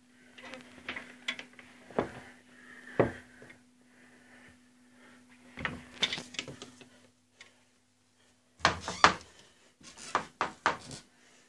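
Clothes being rummaged in a wooden wardrobe: rustling with irregular knocks and bumps against the wooden cupboard and the handheld phone, the loudest run of knocks about nine seconds in.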